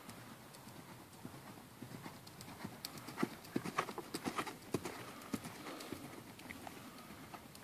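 Ridden horse's hooves striking the sand of a riding arena in a steady rhythm, growing louder from about three seconds in as it passes close, then easing off.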